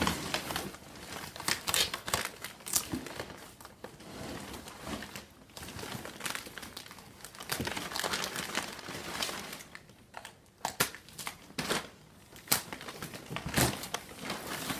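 Packing paper and shredded-cardboard padding crinkling and rustling as an item is worked out of a shipping box, in irregular bursts with sharper crackles and a quieter spell about two-thirds of the way in.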